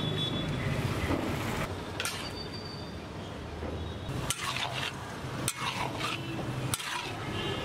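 Steel spatula scraping and tossing chicken pieces around a large iron wok over a steady sizzle, with a few sharp metal clacks as the spatula strikes the pan.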